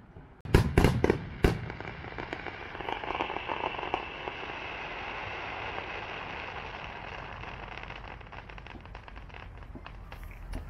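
Fireworks bursting in the air: three or four sharp bangs within the first second and a half, then a dense crackling of many small pops that runs on for several seconds and slowly eases off.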